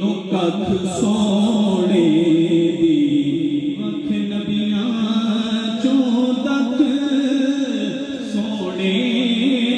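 A man singing a naat into a microphone, drawing out long held notes that bend up and down in pitch.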